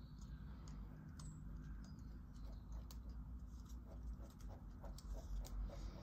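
Faint scratching of a drawing pen on sketchbook paper, with light ticks, turning about halfway into quick short hatching strokes at about four a second.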